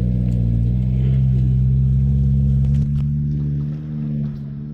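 Vehicle engine running loud under steady throttle at a near-constant pitch, then easing off about three seconds in.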